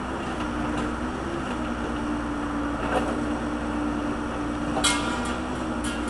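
Case backhoe's diesel engine running steadily under hydraulic load as the bucket digs, its pitch stepping slightly in the first second or two. A sharp clank with a brief ring comes near the end.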